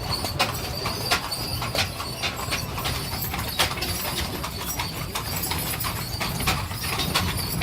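Horse-drawn stagecoach underway: horses' hooves clip-clopping in an irregular run of sharp clacks, several a second, over the steady low rumble of the rolling coach.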